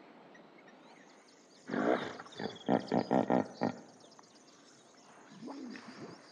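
Hippopotamus calling: a loud grunt about two seconds in runs into a series of rapid, pulsing honks, followed by a quieter low call near the end. Birds chirp faintly in the background.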